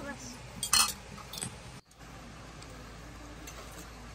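A metal spoon clinks sharply against an engraved metal serving platter while stew is spooned out, a loud ringing clink about a second in and a lighter one just after.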